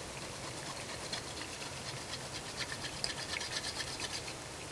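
A ball of chocolate being rubbed on a flat metal grater: quick rasping scrapes, about four or five a second, getting stronger about a second in and stopping near the end.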